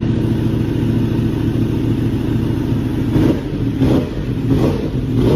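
Yamaha R1M's crossplane inline-four engine running through its exhaust, holding a steady note for about three seconds, then revved in quick, repeated throttle blips.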